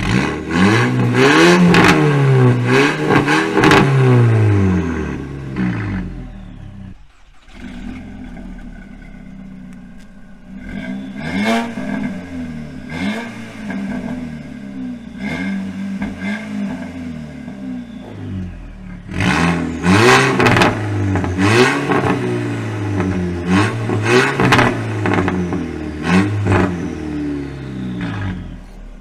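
Volkswagen Golf GTI Mk5's 2.0-litre turbocharged four-cylinder, heard through an exhaust with a bypass cut-out valve and the mid muffler deleted, being revved again and again. There are several rising and falling revs in the first few seconds, a drop back towards idle about seven seconds in, and then a quick series of short blips in the second half.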